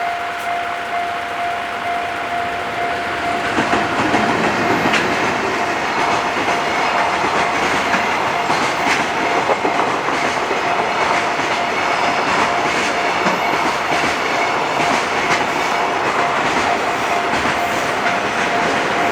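Train running through a Japanese railway level crossing, its wheels clacking over the rail joints, getting louder about four seconds in. Under it a steady ringing tone from the crossing's warning bell carries on throughout.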